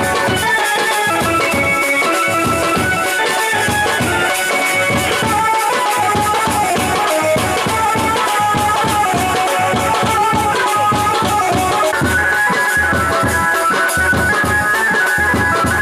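Instrumental music: a melody over a steady drum beat, the instrumental passage of a Bengali love song.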